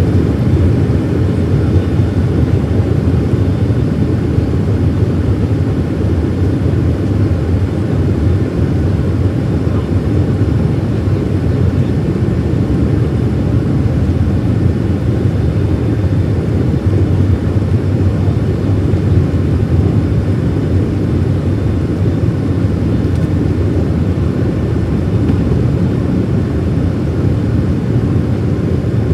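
Boeing 737-700 heard from inside the cabin during its takeoff roll: the CFM56-7B turbofans at takeoff power make a loud, steady deep rumble through the fuselage.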